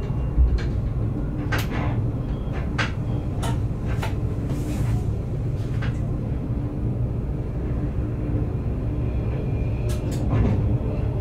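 Train running along the track, heard from inside the driver's cab: a steady low rumble with a faint steady hum, and scattered sharp clicks and knocks, a pair of them about ten seconds in.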